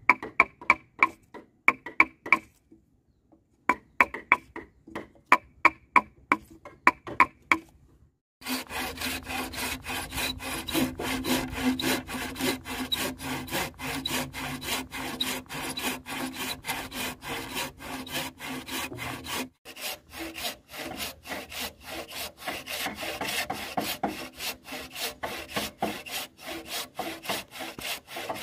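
A run of sharp, ringing taps with a short pause. About eight seconds in, a hand saw starts cutting wood with rapid, even strokes that carry on steadily.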